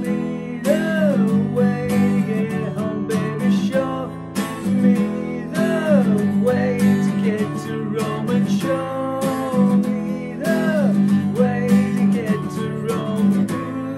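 Acoustic guitar strummed steadily in a repeating chord pattern, with a wordless sung melody gliding over it.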